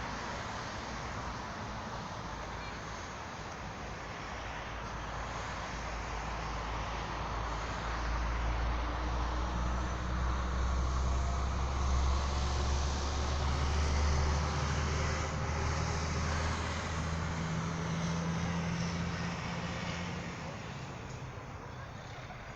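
A motor vehicle passing, its low engine rumble swelling to a peak midway and fading again, over a steady background of traffic noise.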